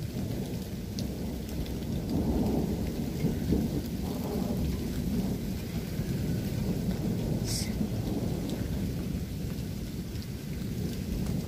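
Rainstorm: steady rain with a deep rumble that swells and fades, heavy in the low end.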